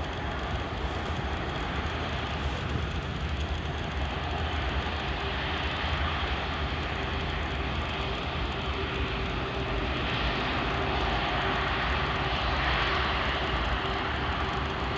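Jet engine noise from an Airbus A340-600's four Rolls-Royce Trent 500 engines as the airliner rolls along the runway past the listener, a steady roar with a steady hum tone joining about a third of the way in and a slight swell in loudness past the middle.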